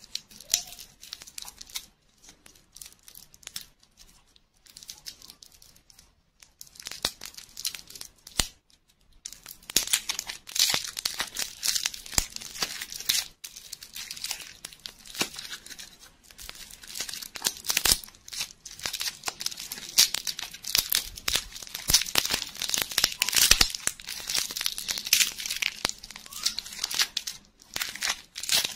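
Crinkly wrapper being peeled and torn off a ball lollipop by hand. Scattered crinkles at first, then dense crackling and tearing from about ten seconds in.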